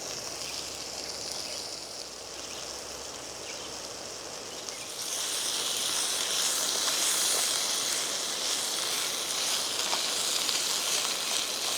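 Vegetables and jalapeños frying in a skillet, a steady sizzle that grows louder about five seconds in.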